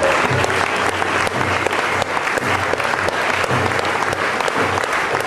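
Audience applauding, a dense, steady clapping that keeps going without a break.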